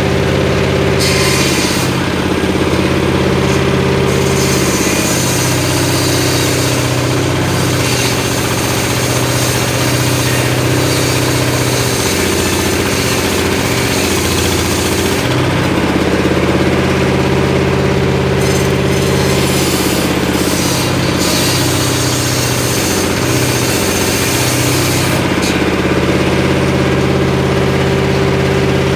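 Engine-driven homemade circular saw running steadily, its engine note sagging twice under load as the blade rips through short mahogany logs: once for about ten seconds, then again for about six. A hiss of sawing accompanies each cut.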